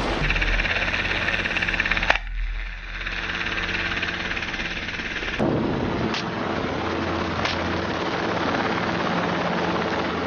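Rapid gunfire over a steady low engine drone, breaking off about two seconds in, then a few single sharp cracks.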